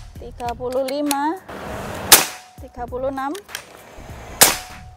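Predator Bocap Black Army Phantom PCP air rifle firing twice, about two seconds apart, each shot a sharp crack. These are the 35th and 36th shots from a single fill of about 2700 psi.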